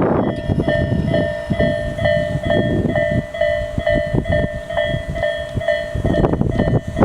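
Japanese level-crossing electronic warning bell with the Tobu Isesaki Line-type tone, ringing in even dings a little over twice a second, over a low rumble. The bell stops about six seconds in and a loud rushing noise takes over.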